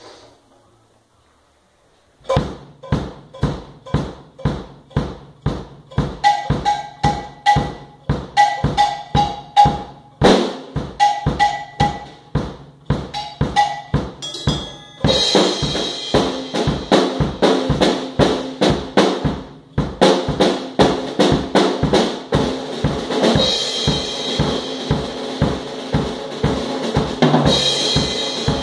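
Acoustic drum kit played solo with sticks: a steady beat of kick and snare strokes starts about two seconds in. From about halfway the playing gets busier and the Sabian cymbals wash over it, with a short break about two-thirds of the way through.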